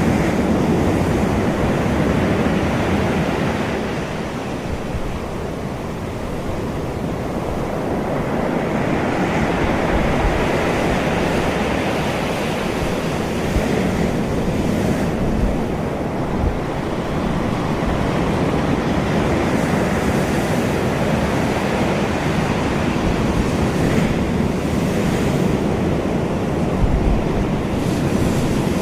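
Ocean waves washing in, a steady rushing surf that slowly swells and eases.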